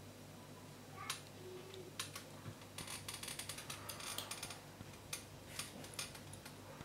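Light clicks and taps of two 3D-printed plastic parts and their thin metal pins being handled and lined up in the fingers, with a rapid cluster of clicks midway through.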